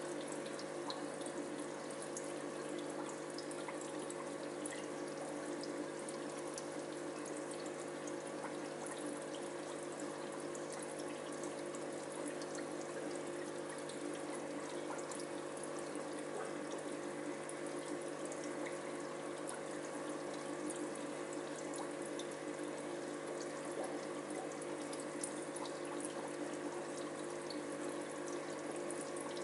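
Steady trickling and bubbling of aquarium water, with many small splashy ticks, over a low steady hum.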